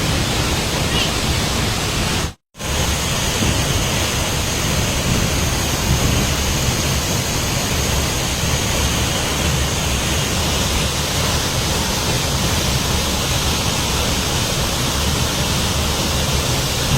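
Steady roar of a waterfall's falling water. The sound drops out completely for a split second about two and a half seconds in.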